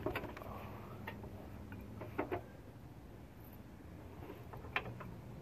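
A handful of scattered light clicks and knocks from hands working parts of a car's front suspension inside the wheel well, over a faint steady low hum.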